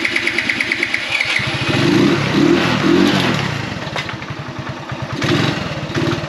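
A small motorbike's electric starter cranks on a jump starter pack, with a whine, for about a second and a half. Then the engine catches, revs briefly and settles into running on choke.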